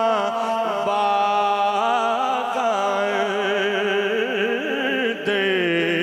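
A man singing Punjabi Sufi poetry through a microphone, drawing out a long line with a wavering, ornamented pitch, with a short break about five seconds in.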